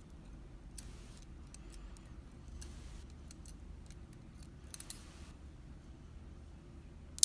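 Small metallic clicks and scrapes of pick tools working the pins and springs out of a BKS euro cylinder lock while it is taken apart, with one sharp, much louder click near the end.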